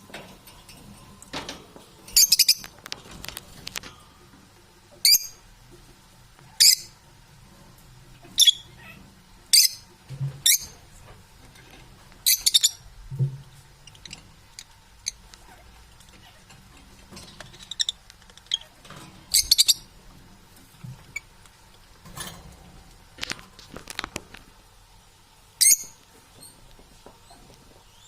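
Parrot calling in short, sharp, high-pitched chirps and squeaks, one every second or two at irregular spacing.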